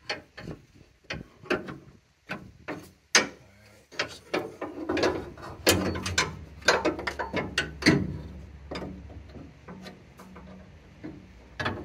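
Steel trunk-lid torsion rods clinking, scraping and knocking against the trunk's sheet metal and hinge as they are worked into place by hand: irregular sharp clicks and knocks, with a low hum underneath for several seconds in the middle.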